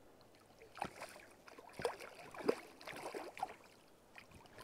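A string of short water splashes as a large grayling is netted from the river.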